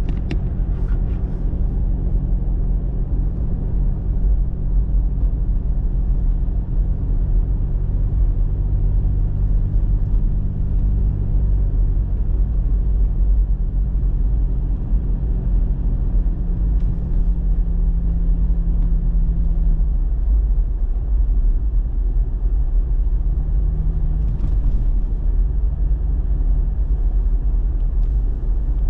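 Pickup truck running down the road, heard from inside the cab: a steady low engine and road rumble. The engine's humming tone drops away about two-thirds of the way through, leaving mostly the rumble.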